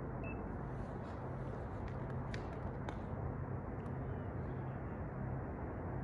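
Distant low, steady diesel-engine hum over a faint background rumble, with a few faint clicks.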